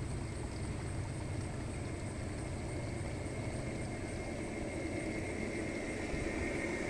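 Gauge One (1:29 scale) model diesel locomotive and freight train approaching on the track: a steady running hum with a whine that grows louder over the last couple of seconds.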